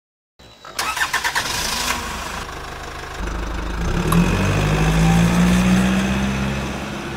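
An engine starting: a rapid clicking crank for about a second and a half, then the engine catches and runs steadily, growing louder and then easing off.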